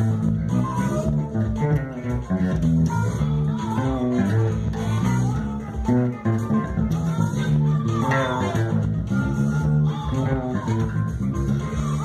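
Fretless electric bass played fingerstyle: a fast, busy funk line of quickly changing notes.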